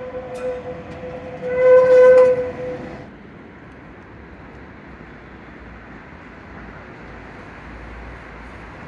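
A vehicle horn sounding a steady pitched tone: the end of one blast right at the start, then a second, louder blast of about a second about one and a half seconds in. After it, steady street traffic noise.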